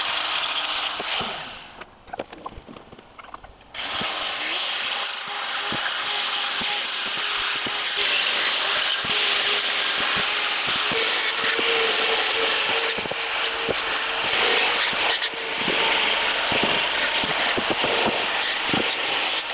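Angle grinder with an abrasive disc grinding the surface of a wooden rack board, a loud rasping grind with a steady motor whine under it. It goes quiet for about two seconds near the start, then starts again and keeps going.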